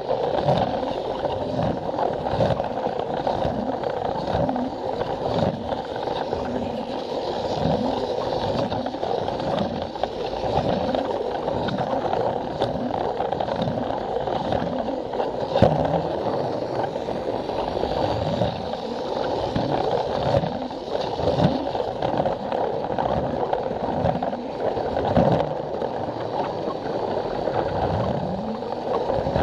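Plarail toy train running on plastic track: a steady whirr from its small motor and gears, with the wheels clacking in a regular rhythm about once a second.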